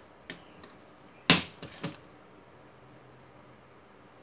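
A few light clicks, then one sharp knock about a second in and a smaller one just after, from a circuit board being handled and set down on a workbench.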